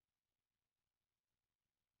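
Near silence: the soundtrack is essentially empty.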